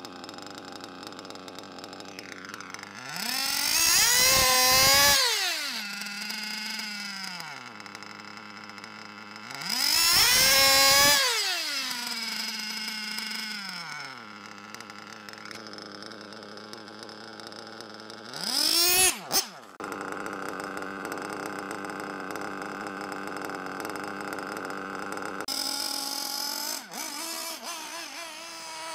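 Small nitro RC car engine idling, revved up and back down twice, then given one short sharp blip about two-thirds of the way through before settling to steady running. The new engine is being run in during break-in.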